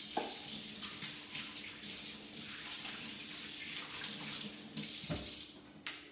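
Kitchen tap running steadily into a sink, with a few knocks near the end.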